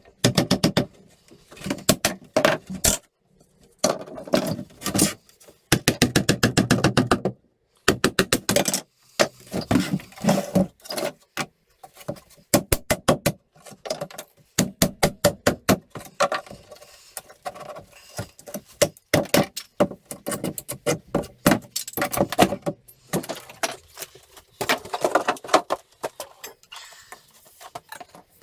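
Claw hammer striking a wooden pallet in many quick runs of blows, knocking the slats and blocks apart.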